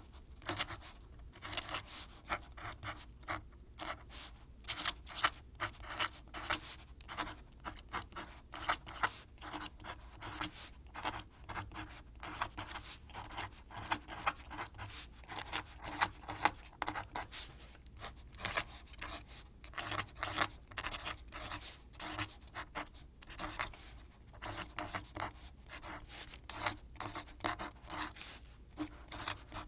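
Close-miked ASMR scratching and tapping: a rapid, irregular run of short scratches and clicks in clusters with brief pauses.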